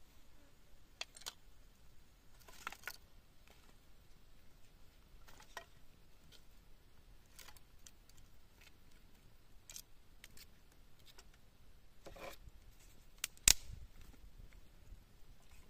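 Dry twigs being broken and fed into the embers under a cooking stone: scattered light clicks and cracks, with one sharp crack near the end.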